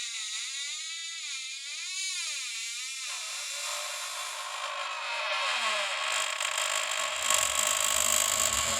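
Designed horror sound effect: a high, wavering tone that swoops up and down for about three seconds, then gives way to a growing hiss and rushing noise with a low rumble building underneath near the end.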